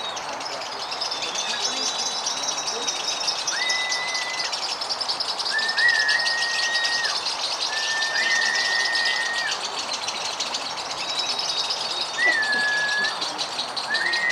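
Lovebirds singing a continuous, very rapid chattering trill (the long 'ngekek' that contest judges time), with steady whistle-like notes about a second long repeating every couple of seconds.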